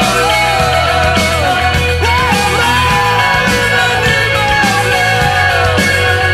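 Rock music with a singing voice carrying a wavering melody over a steady bass line and regular drum beats.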